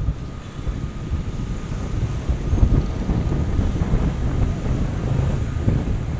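Wind buffeting a moving camera's microphone: a steady, loud, low rumble, as from a camera carried along on a bike ride.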